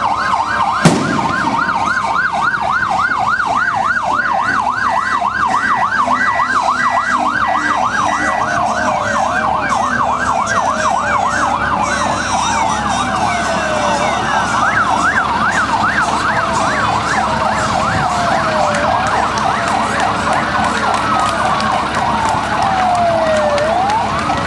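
Several vehicle sirens sounding together: a fast yelp sweeping up and down several times a second, joined in the second half by slower wails that fall in pitch. A single sharp bang about a second in is the loudest sound.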